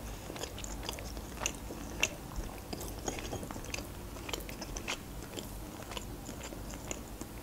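A person chewing grilled chicken close to the microphone: irregular short mouth clicks and smacks.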